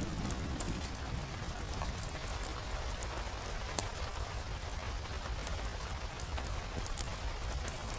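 Steady rain with a low rumble beneath, and frequent sharp pops and crackles of a wood fire scattered through it.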